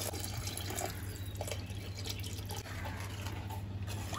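Tamarind water trickling and dripping into a clay cooking pot.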